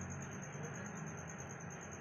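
Steady background noise with a low hum and a constant high, thin whine.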